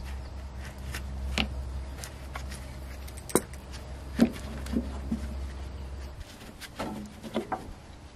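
Corroded battery cable clamps being twisted and worked off the terminal posts of a Ford 3000 tractor's battery: scattered metallic clicks and clunks, the loudest a little over four seconds in, and a cluster near the end. A low steady hum underneath stops about six seconds in.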